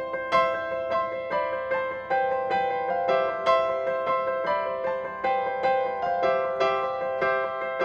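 Background music: a gentle piano melody of struck notes that ring and fade, several notes a second.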